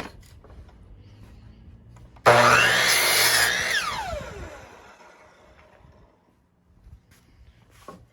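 Electric power saw cutting a wooden board to length: the saw starts suddenly about two seconds in, cuts briefly, then the blade winds down with a falling whine that fades out over a few seconds.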